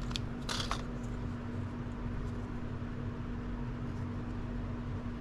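Steady low room hum with a brief rustle or click about half a second in.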